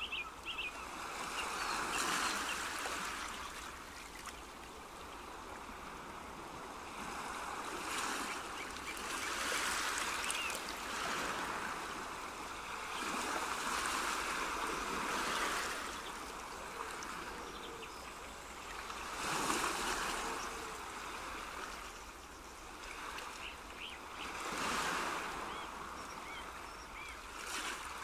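Rushing water like waves washing in, swelling and fading every few seconds, with a few faint high chirps.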